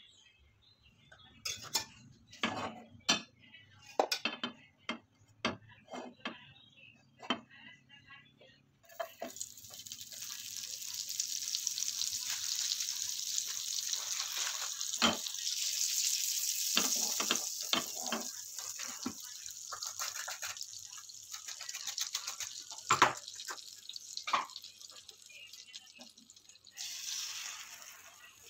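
Scattered clinks and taps of kitchen utensils for the first several seconds, then, about nine seconds in, butter starts sizzling in hot oil in a non-stick frying pan: a steady hiss that builds, holds with a few more clinks, and shifts and drops off near the end.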